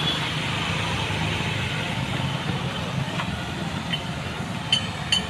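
An engine idling steadily, a low even rumble. Two sharp clicks come about half a second apart near the end.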